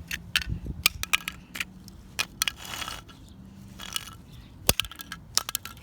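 Wooden stick repeatedly striking a 3D-printed plastic cube: a string of sharp cracks and knocks at irregular intervals, with two brief rustling scrapes in the middle as the damaged print is beaten apart.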